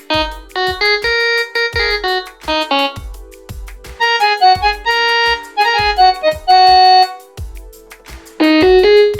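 Trinity PA-41X mini electronic keyboard playing a melody of single notes in a piano-like tone over a steady beat.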